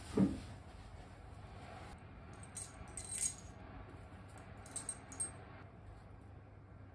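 Small gold jewelry pieces clinking and jingling against each other as they are tipped out of a cloth pouch into a hand, in two short bursts, the first about two and a half seconds in and the second near five seconds. A soft bump comes right at the start.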